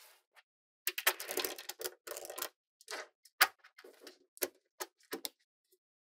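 Small metal magnetic balls clicking and clattering against each other as a strip of them is handled and flexed: a dense rattle starting about a second in, then a handful of single sharp clicks near the end.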